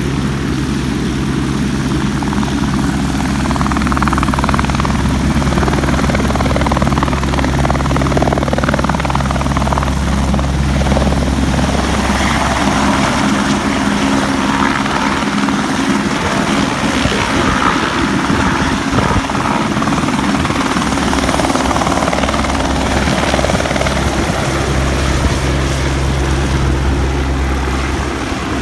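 Light single-engine helicopter taking off: rotor and turbine hum steadily at first, turn rough and rumbling for several seconds midway as it lifts off close by, then settle back into a steady drone as it climbs away.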